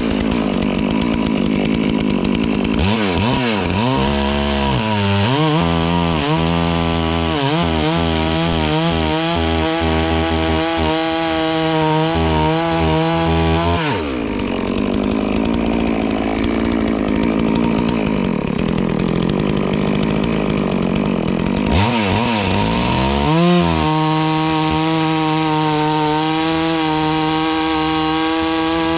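FarmMac F380W 72cc two-stroke chainsaw running hard, cutting log. Its pitch wavers up and down a few seconds in, drops to a rougher sound about halfway, and climbs back to a steady high pitch near the end.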